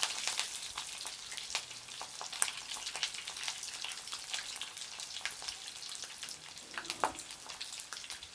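Meat samosas deep-frying in hot cooking oil: a steady sizzle with many scattered crackles and pops, one louder pop about seven seconds in.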